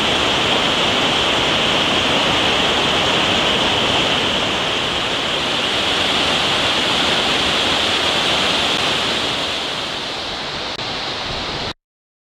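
Mountain stream rushing steadily. It eases slightly near the end, then cuts off abruptly.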